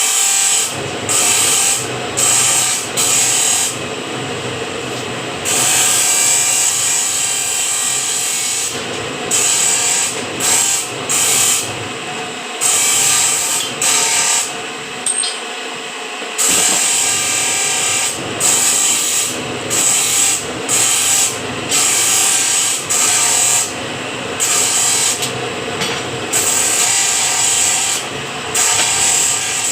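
Power machine working steel square bar, running in repeated bursts about a second long with short dips between them, with a harsh high-pitched hiss.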